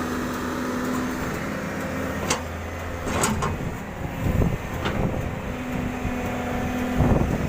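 Doosan 140 excavator's diesel engine running steadily, with several sharp knocks from about two seconds in; the engine grows louder near the end.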